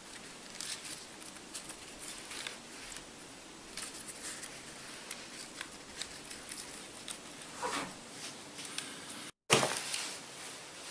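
Dry birch bark strips crackling and rustling in a run of small irregular clicks as they are worked through the plait and pulled tight. Near the end the sound drops out for a moment and comes back with a louder crackle.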